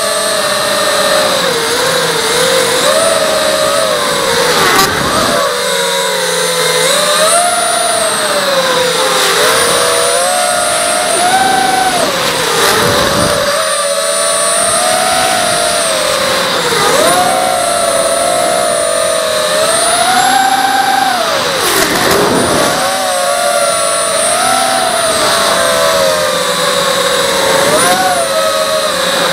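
Emax 2204 2300kv brushless motors and propellers of a ZMR250 racing quadcopter on a 4S lipo, heard from on board: a loud whine that rises and falls in pitch with the throttle, with three sharp dips where the throttle is chopped and punched again.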